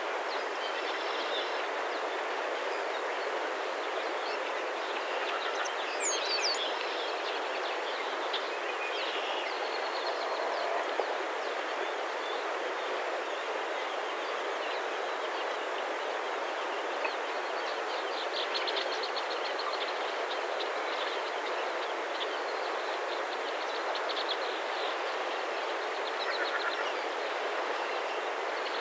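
Steady rushing outdoor background noise, with a few songbird chirps and a short trill above it.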